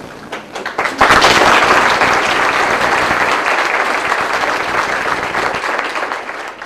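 Audience applauding: a few scattered claps, then full applause that starts about a second in and slowly tapers off near the end.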